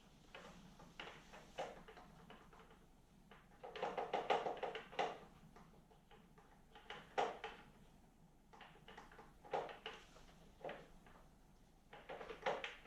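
Light clicks and small knocks of parts and tools being handled on a snowblower carburetor, coming in short clusters with pauses between.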